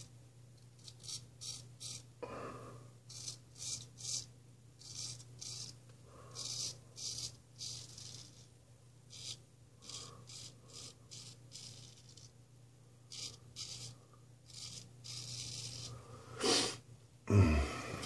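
Ralf Aust 5/8 round-point straight razor scraping through lathered beard stubble in many short, separate strokes, each a brief scratchy rasp. Near the end a faucet is turned on and water runs into the sink.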